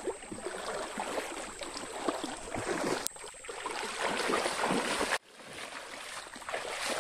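Water sloshing and splashing, first as a person wades through knee-deep swamp water, then as a hooked giant snakehead (toman) thrashes in the shallows at his legs. The sound breaks off abruptly about three seconds in, and again for a moment a little past five seconds.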